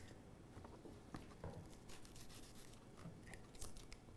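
Faint, scattered taps and crunches of a kitchen knife cutting a red bell pepper on a cutting board.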